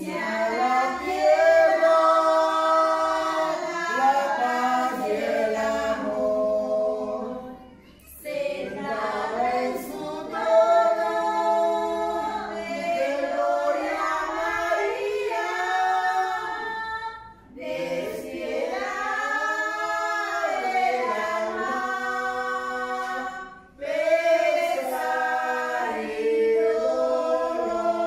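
A group of voices singing a religious hymn a cappella in long, held phrases, with three short pauses for breath between phrases.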